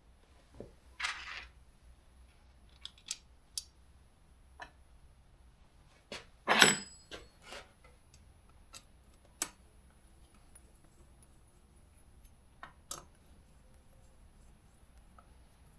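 Scattered clicks and metal clinks of parts and tools being handled while a muffler is fitted back onto a Stihl MS200T chainsaw, with a short scrape about a second in and the loudest clatter about six and a half seconds in.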